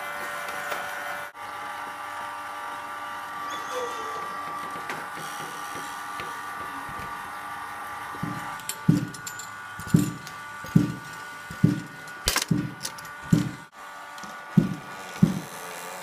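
A motor-driven wooden kinetic machine whirring steadily, with a faint whine. About halfway in, balls start bouncing on wood, a regular hollow thud about one and a half times a second, with one sharper click among them.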